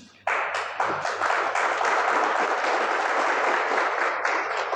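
A crowd applauding, breaking out suddenly a moment in and going on steadily.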